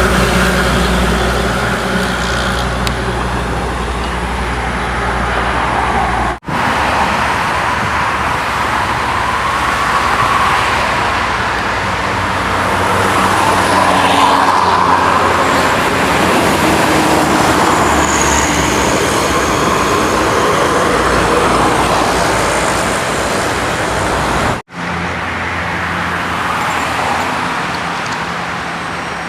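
Steady toll-road traffic: buses, trucks and cars driving past with diesel engine hum and tyre noise. The sound breaks off abruptly twice.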